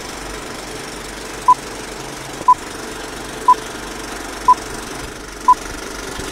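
Film-leader countdown sound effect: a short high beep once a second, five in all, over the steady whirring clatter and hiss of an old film projector.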